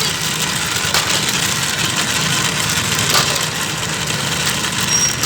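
A steady engine-like drone with a low hum and a wide hiss, with a few light clicks and a short, high beep near the end.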